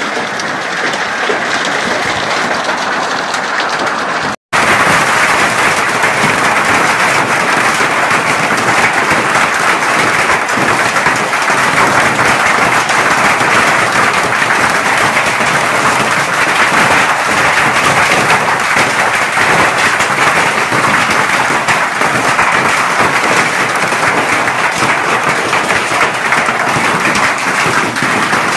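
Heavy hail pelting down: a dense, steady clatter of countless hailstone impacts, like loud applause. It drops out for an instant about four seconds in, then comes back a little louder.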